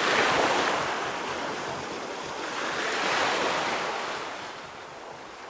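Sea waves washing onto the beach. The surf swells twice, near the start and about three seconds in, then ebbs away.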